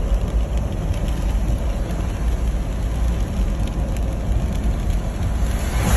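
A car driving, with steady engine and road noise as a low rumble.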